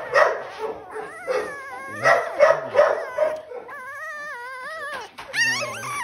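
Young bulldog puppies, their eyes just opening, whining and squealing: a run of wavering high cries and short yelps, with a drawn-out whine of over a second about four seconds in and a rising-then-falling cry near the end.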